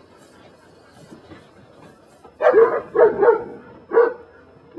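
Belgian Malinois barking: several short barks in quick succession starting about halfway through, the last one a little apart from the rest.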